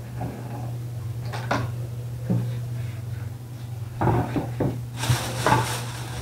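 Hands squishing and turning wet marinated chicken in a stainless steel bowl: soft wet rubbing and a few light knocks against the bowl, over a steady low hum. About five seconds in, a steady hiss joins.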